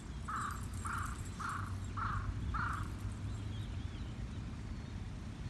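A crow cawing five times in quick succession, about two caws a second, over a steady low rumble.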